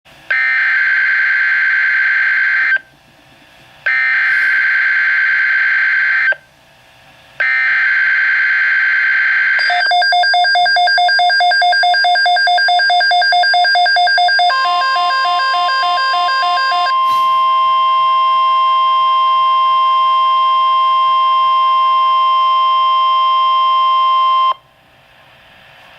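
NOAA Weather Radio Emergency Alert System tones: three bursts of the warbling SAME digital header data, each about two and a half seconds long with short gaps. Then comes rapid pulsing beeps, followed by the long steady weather-radio warning alarm tone, which cuts off about a second and a half before the end. These tones signal an incoming severe weather alert.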